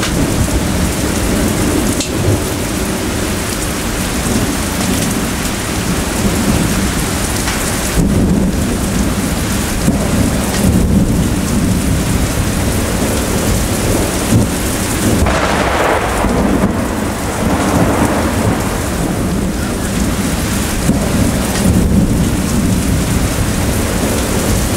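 Heavy thunderstorm: steady rain pouring down while thunder rumbles, with a swell in the rumble a little past halfway.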